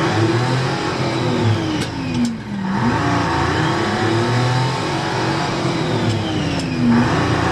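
A motor vehicle engine revving, its pitch sweeping down and back up twice like passing cars. It starts and stops abruptly, as an edited-in clip.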